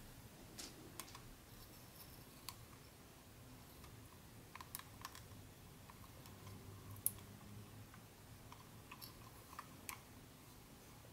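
Handling noises: faint, scattered light clicks and taps of small objects, with one sharper click about seven seconds in.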